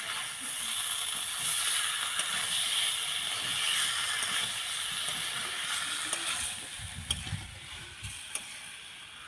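Food sizzling as it fries in hot oil in a pan. The hiss eases off about two-thirds of the way through, and a couple of light clicks follow near the end.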